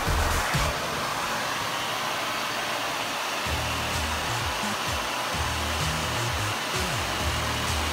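Vacuum cleaner running steadily: a constant whooshing hiss of suction.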